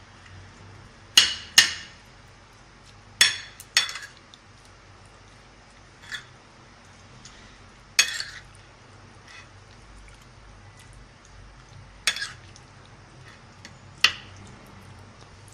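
A utensil clinking and knocking against a bowl as raw chicken pieces are stirred together with vinegar and spice powders, about eight sharp clinks at irregular intervals, some in quick pairs.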